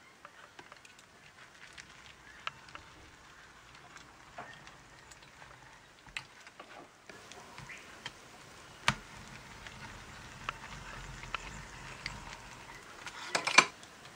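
Scattered faint clicks and crackles of a spur-wheel wire embedder rolling along a frame wire, pressing it into a sheet of beeswax foundation. Near the end comes a quick cluster of louder clicks and knocks.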